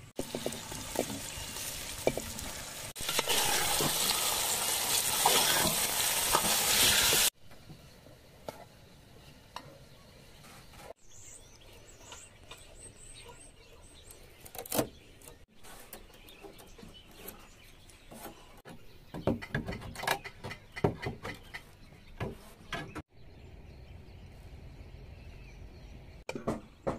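Chicken pieces sizzling in a pot of hot oil and fried onions, a loud, steady hiss that cuts off suddenly about seven seconds in. After that come quieter scrapes and clicks, among them a knife shaving the edge of a wooden board.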